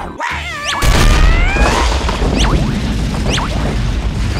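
Dramatic action background music with a sudden heavy impact hit a little under a second in, followed by dense driving sound with quick rising whooshes.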